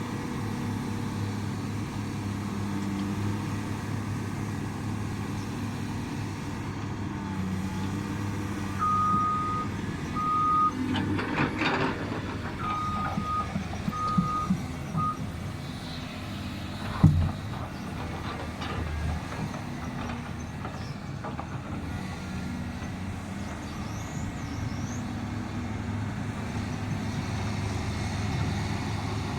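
Heavy excavator diesel engine running steadily, with a backup alarm beeping in two short runs about a third and halfway through. Between them comes some clattering of metal, and a single loud knock a little past the middle.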